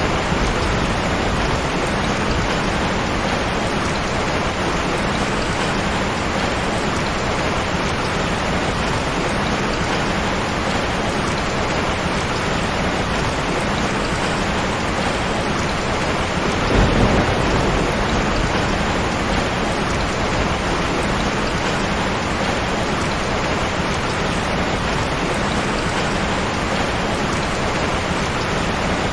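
Heavy rain falling steadily in a dense, even hiss, with a short low rumble of thunder a little past the middle.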